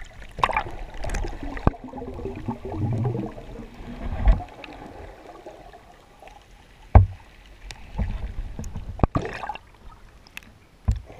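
Muffled underwater sound through a submerged action camera's waterproof housing: uneven sloshing and gurgling of water with scattered knocks, and heavier thumps about four and seven seconds in.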